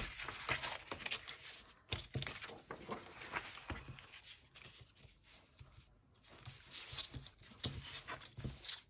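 Old book pages and paper scraps rustling and sliding as they are handled and laid down, with a few light taps.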